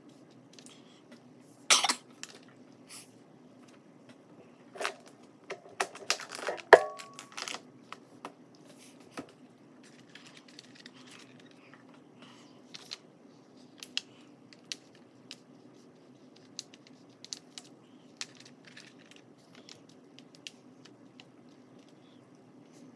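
Small hard clicks and clinks of oil pastel sticks being picked up, handled and set back in their plastic tray, the loudest clack about two seconds in and a cluster around six to seven seconds with one clink that rings briefly. Between them, faint scratchy strokes of pastel on paper.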